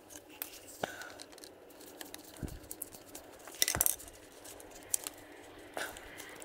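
Scattered light clicks and small metallic clinks of tools and small parts being handled, with a brief flurry of louder clinks a little past halfway.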